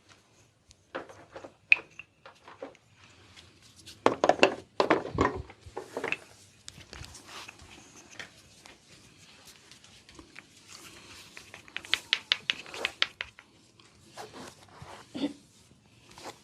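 A barber's hands working over oiled skin in a massage: scattered slaps and taps, a dense loud run of strokes about four seconds in, and a fast series of sharp taps around twelve seconds in.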